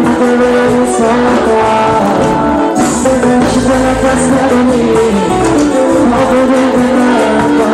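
Live band music at a concert, loud and steady, with held melody notes over the band.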